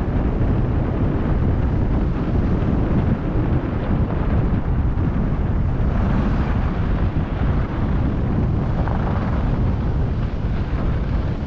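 Wind buffeting a GoPro's microphone during a fast ski descent at about 45 km/h, a steady rumble with fluctuating gusts, mixed with the hiss of skis running over groomed snow.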